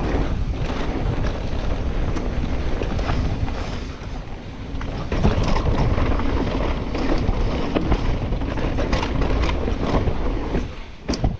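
Wind rushing over the camera microphone and mountain-bike tyres rolling over dry, dusty trail dirt at speed, with scattered clicks and rattles from the bike. It quietens sharply near the end.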